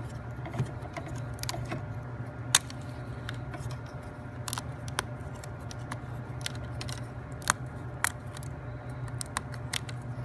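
Sharp wooden clicks and snaps of thin laser-cut plywood puzzle pieces being pressed out of their sheet and handled, the loudest about two and a half seconds in and twice near eight seconds, over a steady low hum.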